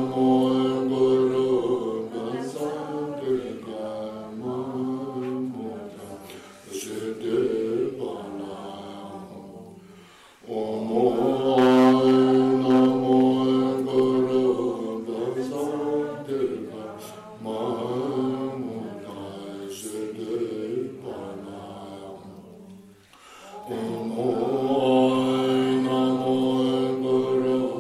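Voices chanting a Buddhist prayer in long, drawn-out melodic lines, breaking off about ten seconds in and again near the end before the chant resumes.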